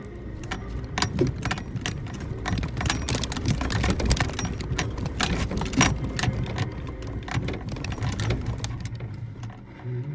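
Suzuki Jimny JB64 driving over a rough forest dirt road: the engine runs low under a dense clatter of sharp knocks and rattles as the vehicle jolts over the surface, easing off near the end.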